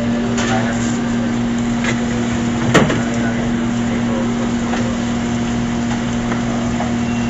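Steady low machine hum, with a few light clicks and one sharp knock a little under three seconds in.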